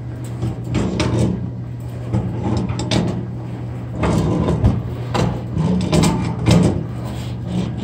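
Tongue-and-groove pliers (Channellock) clanking and scraping on a metal sink drain nut, in irregular knocks as the nut is worked loose. A steady low hum runs underneath.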